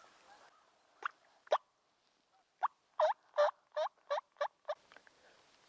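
Wild turkey yelping: two single yelps, then a quickening run of seven, each note sliding down in pitch.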